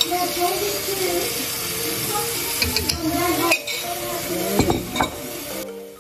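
Chicken sizzling as it fries in sauce in a skillet, a steady hiss, with a metal spoon clinking against the pan and bowl several times.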